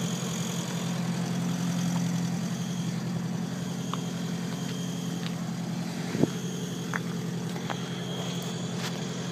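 Exhaust of a Honda Civic hatchback with a B20 VTEC engine swap, idling with a steady low note. A single short knock about six seconds in.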